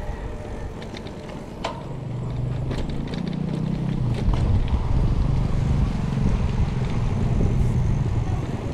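Motorcycle engine running, growing louder over the first few seconds and then holding steady, with a few sharp ticks.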